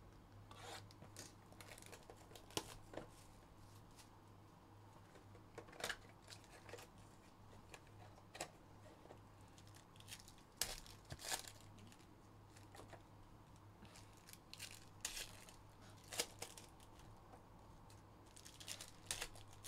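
Quiet, scattered crinkling and tearing of a trading-card pack wrapper and box packaging being handled and opened, in short irregular crackles over a faint low hum.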